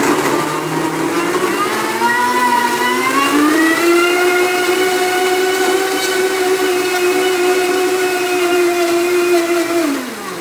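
Countertop blender puréeing a whole apple with mustard and balsamic vinegar. The motor starts up and rises in pitch over the first few seconds, runs steady, then winds down with a falling pitch near the end.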